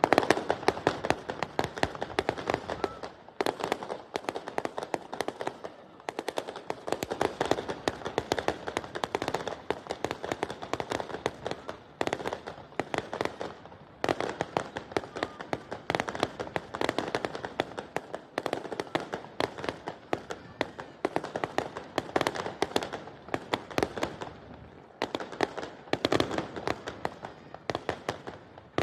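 Fireworks crackling: dense rapid pops and crackles from bursting shells, coming in waves about every two seconds.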